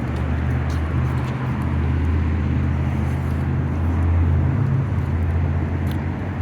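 A motor vehicle engine running with a steady low hum, over a haze of traffic noise, with a few faint ticks.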